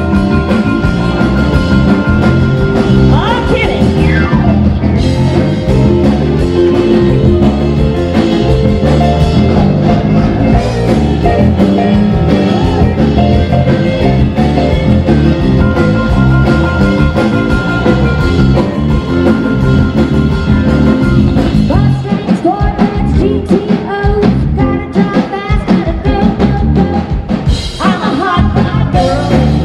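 Rock and roll music with guitar and singing. A little past the middle it breaks into sharp separate beats for several seconds.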